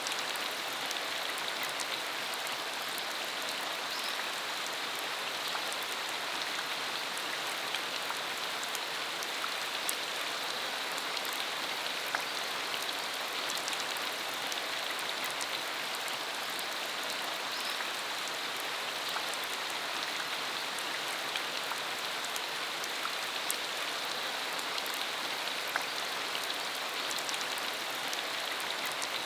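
Steady rain falling on a dirt country road: an even hiss dotted with many small drop ticks.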